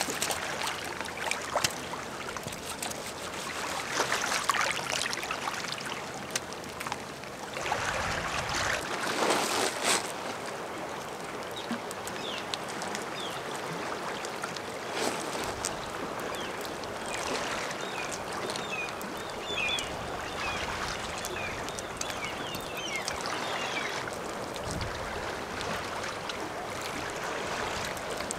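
Muddy water sloshing and wet clay squelching as clay is scooped out of a waterlogged pit, then wet clay being pressed and smoothed by hand. The louder bursts come in the first ten seconds, and faint high chirps come and go past the middle.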